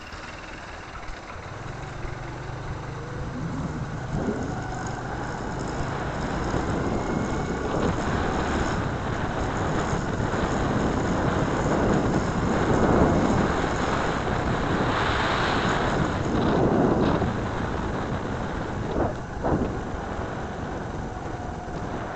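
Wind rushing over the microphone and road noise from riding along a street, over a low steady hum. The rush swells loudest in the middle and eases off, with a couple of short knocks near the end.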